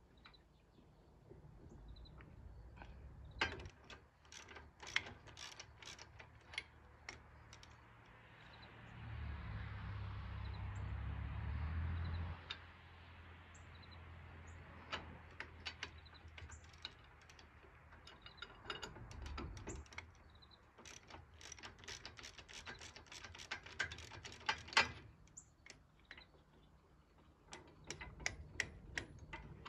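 Socket ratchet clicking in short quick runs as bolts are turned, with clinks of metal tools. A low steady rumble from about 9 to 12 seconds in.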